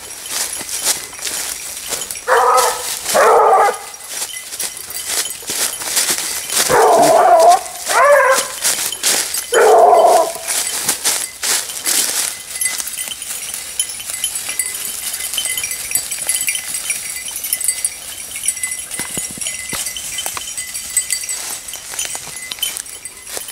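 Basset bleu de Gascogne hounds giving tongue on a hare's scent: five loud bays in the first ten seconds, the later ones longer and drawn out. Under them, and alone after that, footsteps crunch and rustle through dry leaf litter.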